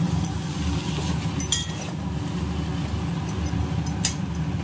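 Gas stove burners running with a steady low rumble, with a few light metal clinks of a steel spatula against a steel pan, about a second and a half in and again near the end.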